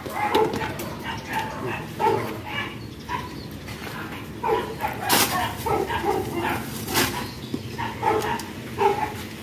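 A dog barks repeatedly in short yaps, with two sharp knocks of rock against rock about five and seven seconds in as rocks are shifted by hand.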